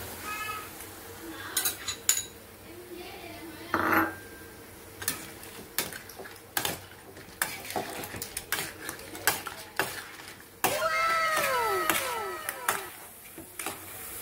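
Metal spatula scraping and clinking against a steel wok while stir-fried crab with egg is mixed, giving quick, irregular clicks and scrapes. About eleven seconds in, a short sound of several overlapping tones that fall in pitch.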